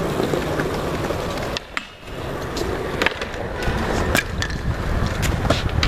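Wheels rolling over concrete, with scattered sharp clicks and knocks and a brief lull a little under two seconds in.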